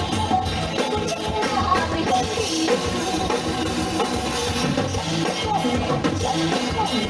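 Live band playing an upbeat pop-rock song, with a drum kit keeping a steady beat.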